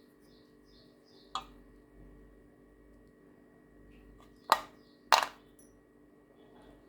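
Three sharp, hard knocks: a lighter one about a second in, then two loud ones close together past the middle. Faint small bird chirps repeat behind them.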